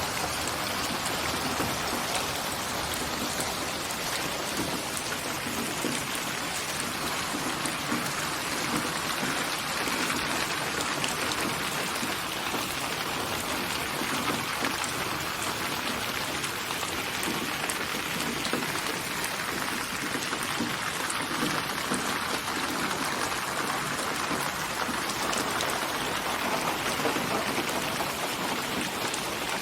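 Steady rain, an even hiss full of fine drop ticks that holds the same level throughout.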